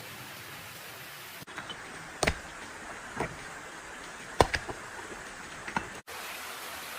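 Steady background hiss with a handful of sharp cracks and knocks, about one a second, through the middle, like steps snapping twigs on a forest floor.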